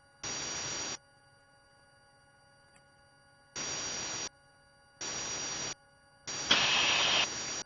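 Helicopter headset intercom hiss cutting in and out abruptly four times, as a voice-activated microphone opens and closes, with a faint steady hum between the bursts; the last burst is the loudest.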